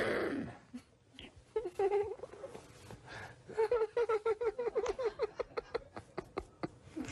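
A man giggling uncontrollably: a quick string of short, high-pitched laughs that starts about a second and a half in and comes faster and denser through the middle.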